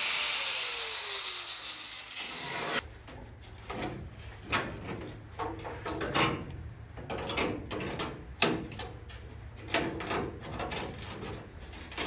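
A power tool spinning down with a falling whine over the first three seconds, then irregular scraping, rubbing and clicking strokes of hand work on car-body sheet metal.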